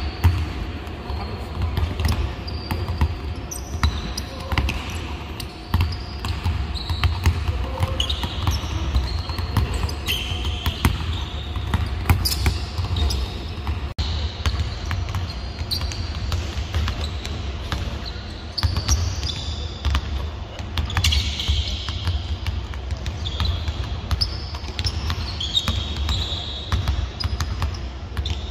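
Several Molten basketballs bouncing on a hardwood court in an irregular, overlapping patter of knocks, echoing in a large arena, with short high squeaks typical of sneakers on the floor.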